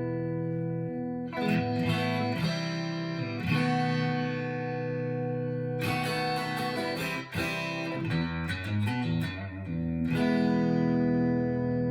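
Clean electric guitar, a Stratocaster through a 1980 Fender Pro Reverb amp and a Signal Cheyne B6K compressor pedal with its pre-gain turned all the way down, playing ringing chords with quicker single-note runs between them. Fresh chords are struck about a second in, at about three and a half seconds, at about six seconds, and again near the end.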